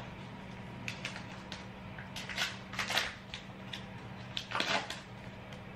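Short rustling, scraping handling noises, a few separate bursts, over a steady low hum from an air conditioner.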